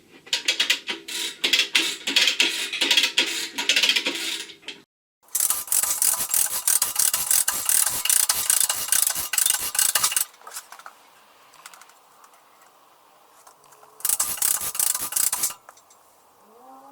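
Rough scraping and rubbing from workshop equipment being handled, in three long stretches. The sound breaks off sharply about five seconds in, and it goes almost quiet for a few seconds before the last stretch.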